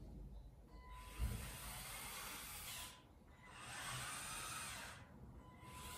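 Electric motors and plastic gearing of a motorised LEGO Technic crawler crane whirring, starting about a second in, stopping briefly twice and starting again each time. A single knock sounds just after the whirring begins.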